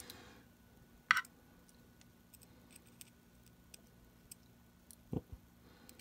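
Small screwdriver starting the tiny screws into a Zippo double torch butane insert: faint scattered ticks and scrapes, with a sharper click about a second in and a soft knock near the end.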